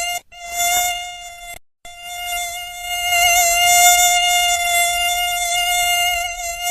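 Mosquito whining in flight: a steady buzzing hum from its wingbeat, wavering slightly in pitch. It cuts out twice within the first two seconds, the second time to silence for a moment, then carries on.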